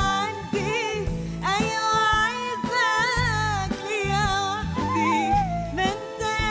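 A woman singing an Arabic song live, her voice wavering through ornamented runs, over a band of keyboards, drums and bass guitar.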